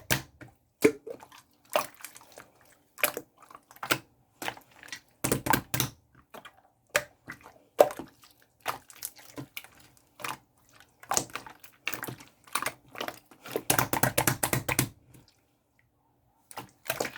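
Clear blue slime being pressed and squeezed by hand, making sharp sticky clicks and pops. There are two longer runs of rapid crackly popping, about five seconds in and again around fourteen seconds.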